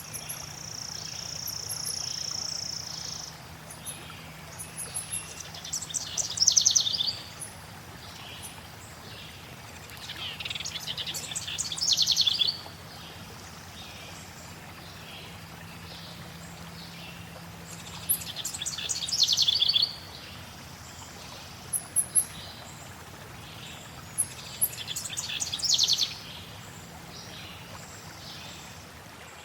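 Forest birdsong: a rapid, accelerating trilled phrase repeated four times, several seconds apart, with a held high whistle at the start, over a faint steady wash of flowing water.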